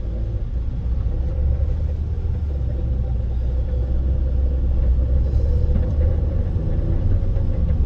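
Honda Fit running: a steady low rumble with a faint steady hum above it, growing a little louder over the first seconds.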